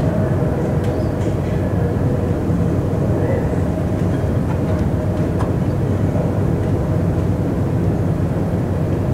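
Steady, loud low rumble without rhythm or clear pitch, from the soundtrack of a projected video artwork played over the room's speakers.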